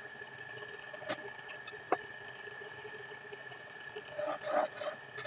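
Belt-driven wood lathe running with a steady hum and whine, with a couple of light clicks. About four seconds in, a hand turning tool starts scraping the spinning wooden blank in short bursts.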